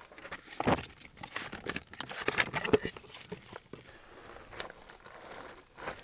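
Unpacking handling noise: a paper instruction manual and the plastic bag around a ceramic tower space heater rustle and crackle in irregular bursts. The sound is busiest in the first half and softer near the end.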